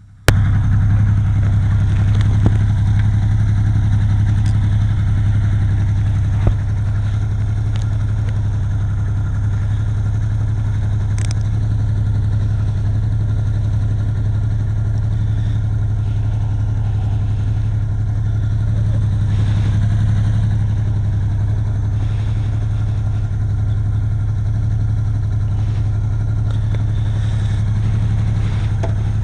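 Yamaha XS850 three-cylinder motorcycle engine idling steadily, with an occasional faint click.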